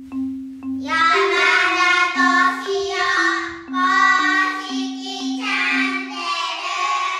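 Intro jingle: a few mallet-percussion notes, then a singing voice joins about a second in over the mallet melody, and it all cuts off suddenly at the end.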